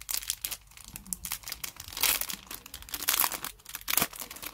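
Clear plastic card sleeve crinkling and crackling as a handmade card is pulled out of it: irregular crackles, loudest about two and three seconds in.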